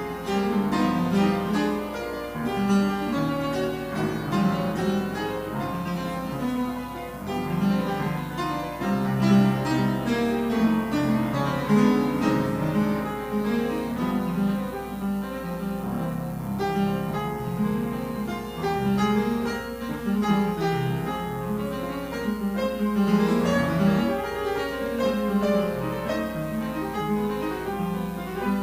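Classical piano music playing continuously, a dense run of notes with a strong low register.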